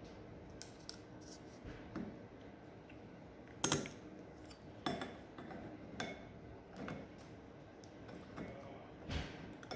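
Light metallic clicks and clinks of a stainless steel cam-type welding gauge being handled and set against a steel fillet-weld test plate, a handful of separate clicks with the sharpest a little over a third of the way in.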